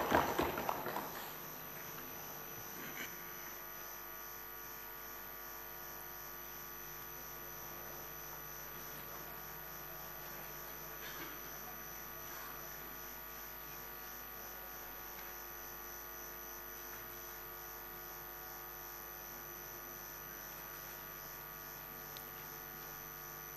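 Steady low electrical hum with several steady tones layered in it, from the chamber's sound-system feed, after a louder noise dies away in the first second. A few faint clicks are heard.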